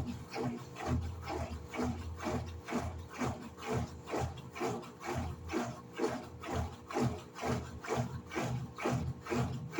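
Electrolux LED14 top-load washing machine agitating a wash load: the motor hums while the agitator swishes the clothes and water back and forth in an even rhythm of about two to three strokes a second.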